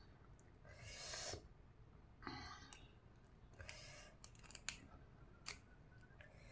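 Fresh cha-om shoots being stripped of their leaves by hand: a few short, crisp tearing and rustling sounds, the loudest about a second in, with several sharp little snaps in between.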